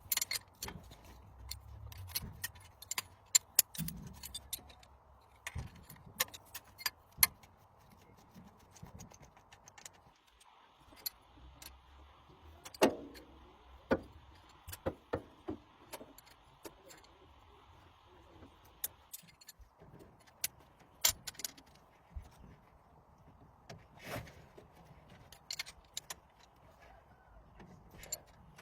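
Metal tools and engine parts clinking and tapping irregularly, with a few louder knocks, over a faint steady hum. A faint hiss joins in from about a third of the way through and stops about two-thirds of the way in.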